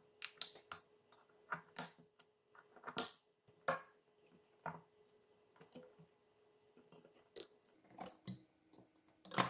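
Light metal-on-metal clicks and scrapes, irregular, as a small screwdriver and needle-nose pliers pry the pressed metal shield off a ball bearing, with a sharper click near the end.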